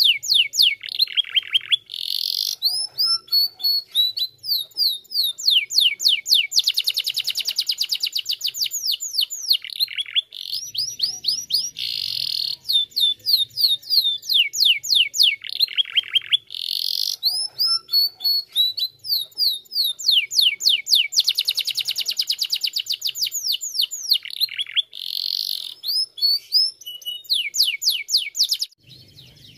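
A domestic canary sings a long, fast song. It runs through strings of quick falling notes and dense rapid rolls, with brief breaks between phrases, and stops shortly before the end.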